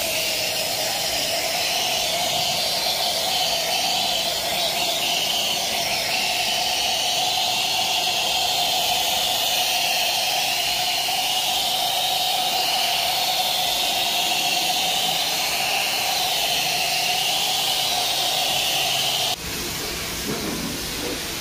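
Self-service car wash foam lance spraying washing foam onto a car: a loud, steady hiss with a steady whine in it, which cuts off abruptly near the end.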